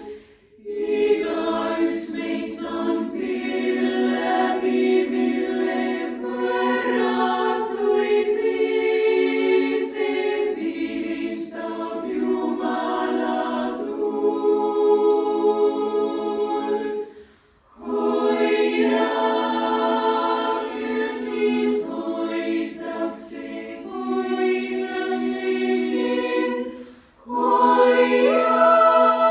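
Girls' choir singing a cappella in Estonian: sustained chords in long phrases, with short breaks for breath about half a second in, partway through and near the end, where the upper voices rise in pitch.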